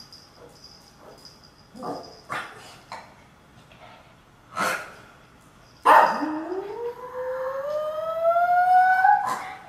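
Poodle howling: a few short sounds, then about six seconds in one long howl that rises steadily in pitch and holds for about three seconds.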